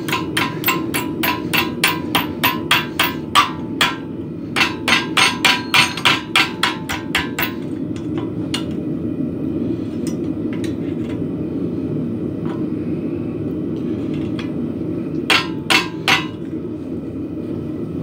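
Hand hammer striking steel over an anvil, bending a forging blank around a 1-inch jig. About three or four ringing blows a second for the first seven seconds, then scattered single taps, then three quick blows near the end, all over a steady low rumble.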